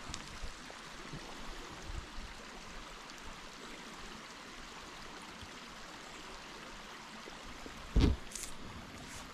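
A small brook's water running steadily, with one brief loud thump near the end.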